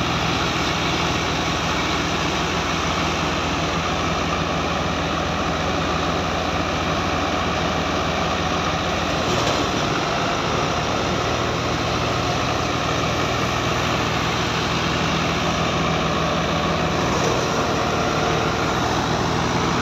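A tractor's diesel engine running steadily under load, driving a Sultan wheat thresher whose drum and fan add an even, loud rushing noise as wheat sheaves are fed in.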